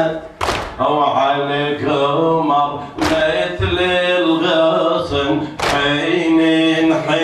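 A man's voice chanting a mourning lament (lathmiya) through a microphone, with three sharp slaps about two and a half seconds apart: mourners beating their chests in time with the chant.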